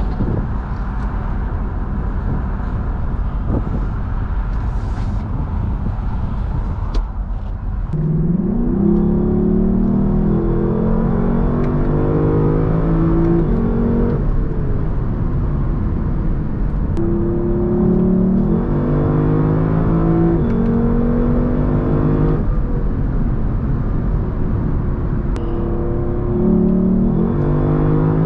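Lexus LC500's 5.0-litre naturally aspirated V8 under hard acceleration. After a steady road and wind rumble, the engine note climbs and drops back in repeated steps as it shifts up through the gears, with fresh pulls starting twice more later on.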